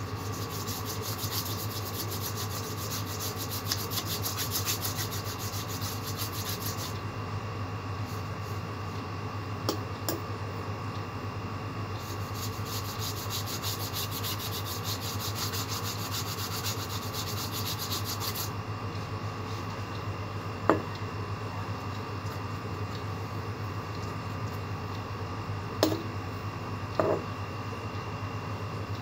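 Paintbrush scrubbing back and forth across paper in quick strokes, in two spells of several seconds each. A steady low hum runs underneath, and a few light knocks come in the second half.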